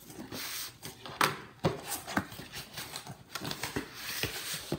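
Cardboard box flaps being pulled open and the box handled: a rustle of cardboard, then several sharp knocks and taps as the flaps and foam packing are moved.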